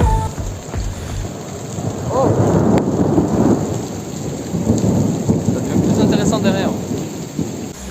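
Thunder rumbling over heavy rain, the rumble swelling twice.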